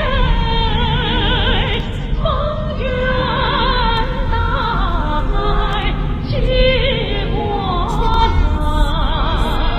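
Music with a singing voice, its held notes wavering with vibrato.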